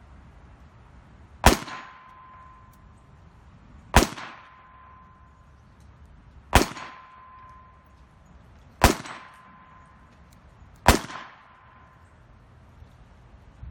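Five shots from a Webley Mark VI .455 revolver, about two to two and a half seconds apart. Each is followed by the clang of the bullet striking a one-inch steel target plate, which rings on with a steady tone for about a second.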